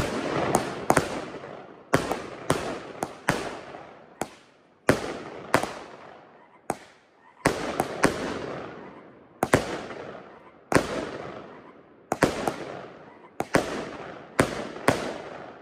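Consumer fireworks cake ('Marvel') firing a run of shots, about one to two sharp bangs a second, each echoing and fading away, with a few short gaps. The shots die away near the end.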